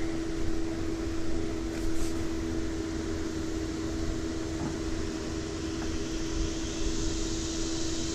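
Steady hum of a small electric motor, one unchanging tone, over an even wash of noise.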